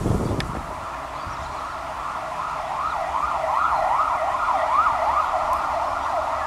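A siren wailing, its pitch sweeping quickly up and down over and over.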